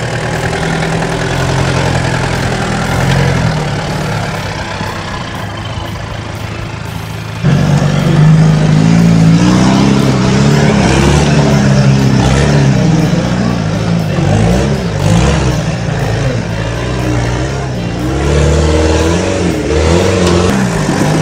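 Engines of modified 4x4 competition trucks working up a steep rocky climb. The sound is steady at first. About seven seconds in it jumps to a louder engine revving up and down as the driver feeds throttle over the rocks.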